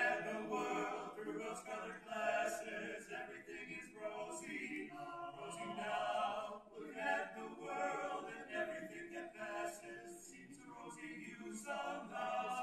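Male vocal quartet singing a cappella in close harmony, phrase after phrase with short breaks between.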